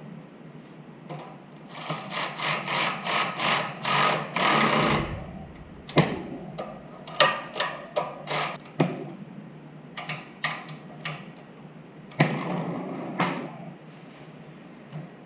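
Tool work on a mini bike: a quick run of about nine strokes, about three a second, then scattered sharp knocks and clicks, and a short burst of noise near the end.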